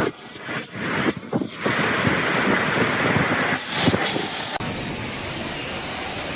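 Storm-force wind blowing hard and buffeting the microphone, in uneven gusts at first; about two-thirds of the way in the sound cuts abruptly to a steadier rushing roar.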